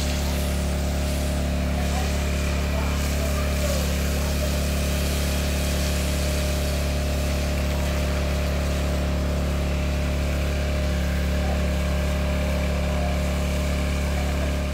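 A motor or engine running steadily at constant speed: a loud, unchanging low hum.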